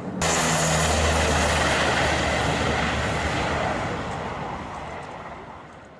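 Aircraft engines at takeoff power, a loud steady roar with a low hum beneath it, fading gradually over several seconds as the plane accelerates away and climbs.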